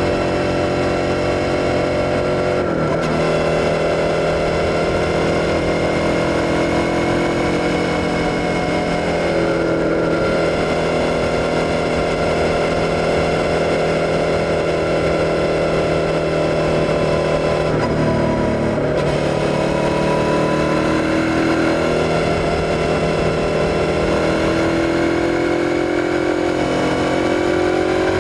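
Suzuki SV650's 645 cc V-twin engine running under way. The pitch holds fairly steady, dips briefly three times (about 3, 10 and 18 seconds in), then rises and falls near the end.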